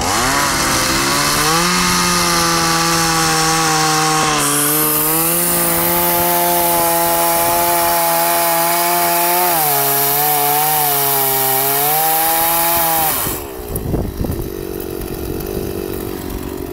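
Kawashima two-stroke chainsaw revving up and cutting through a thick log at full throttle: a steady high engine note with a hiss from the chain in the wood, its pitch sagging under the load late in the cut. About thirteen seconds in, the throttle is released and the saw drops to a quieter idle.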